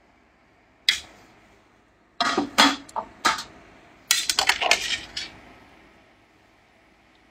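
Hard objects clinking and clattering: a single sharp click about a second in, then two quick flurries of knocks and clinks a couple of seconds apart.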